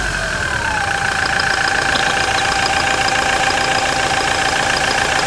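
Toyota Hilux engine idling steadily, heard from underneath the truck, with a steady high whine over it. The whine's pitch falls a little in the first second and then holds.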